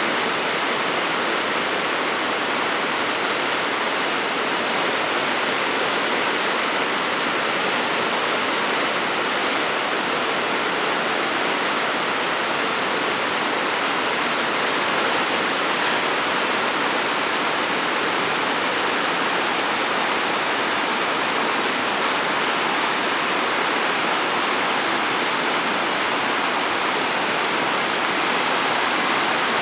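Water released from a dam outlet, falling in a jet into the stilling basin and churning down the channel below: a steady, unbroken rush of white water.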